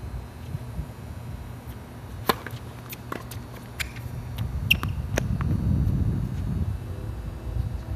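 Tennis ball being hit back and forth in a rally: a run of sharp pops from racket strikes and court bounces, about half a dozen between two and five seconds in. Wind rumbles on the microphone throughout.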